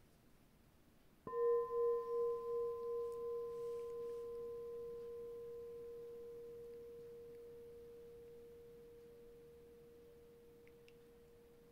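A singing bowl struck once about a second in, ringing with one clear steady tone that pulses at first and then fades slowly and evenly.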